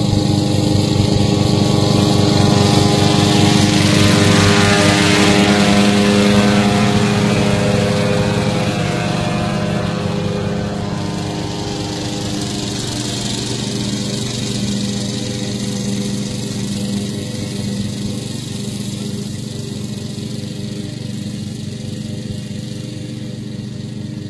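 Westwood T1200 ride-on lawn tractor running steadily as it cuts wet grass, its engine and mower deck loudest a few seconds in as it passes close, then slowly fading as it drives away.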